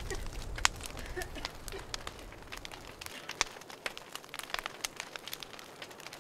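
Crackling like a fire, with a low rumble that dies away about three seconds in, leaving scattered sharp crackles and pops.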